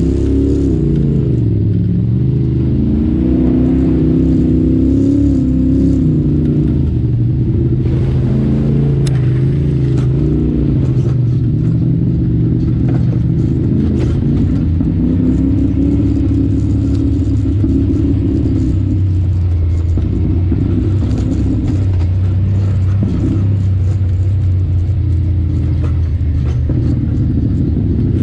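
Side-by-side UTV engine running under load over rough trail, its pitch rising and falling with the throttle, with a few sharp knocks from the machine over the rocks.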